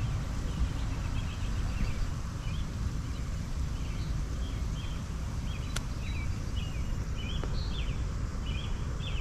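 Birds chirping in a run of short repeated calls over a low wind rumble on the microphone, with one sharp click about six seconds in.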